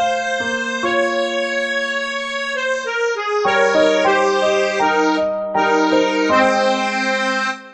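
Slow instrumental music: held, reedy chords under a changing melody line. It fades away near the end.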